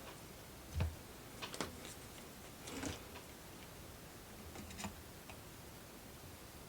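A few light knocks and clicks from handling small tools and parts on a soldering bench, the loudest a soft thump about a second in.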